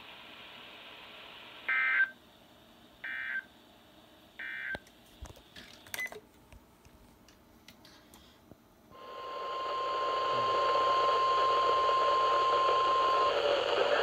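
Three short warbling data bursts from a NOAA Weather Radio receiver, the SAME alert header, followed by a few clicks. Then, over loud radio static, the steady 1050 Hz NWS warning alarm tone sounds for about four seconds and stops, leaving the static.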